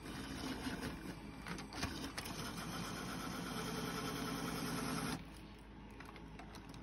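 Battery-powered Lego train's small electric motor whirring steadily as it runs, with a few plastic clicks early on, then cutting off suddenly about five seconds in.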